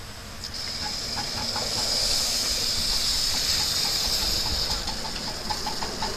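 Ridable live-steam miniature locomotive hissing loudly as steam blows out low at the front, by the cylinders, while it moves off. A faint regular chuff builds under the hiss and turns into a quicker, clearer beat near the end.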